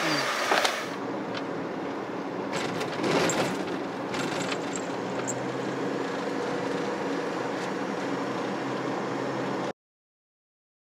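Steady road and engine noise of a kei van driving, heard from inside the cabin, with a low even hum and a few faint clicks and knocks in the first few seconds. The sound cuts off abruptly near the end.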